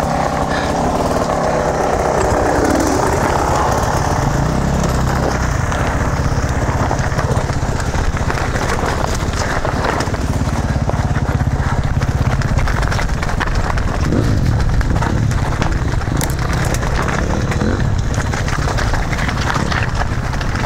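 Electric mountain bike clattering and crunching down a loose rocky trail, with dirt-bike engines running close by, most plainly in the first few seconds.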